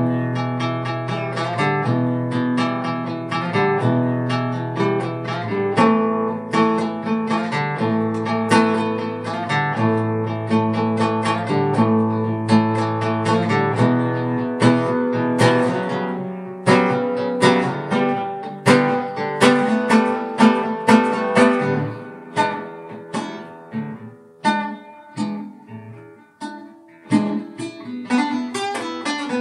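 Guitar playing an instrumental piece: a run of plucked notes over held bass notes, thinning to sparser, quieter single notes about three quarters of the way through, then picking up again near the end.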